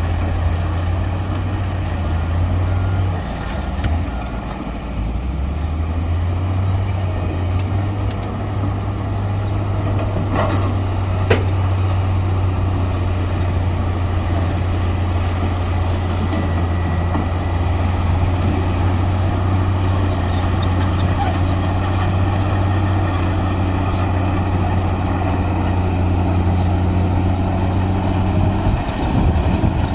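Heavy diesel engine of earthmoving machinery running steadily under load. Its note dips and shifts briefly a few seconds in, and a single sharp click comes about eleven seconds in.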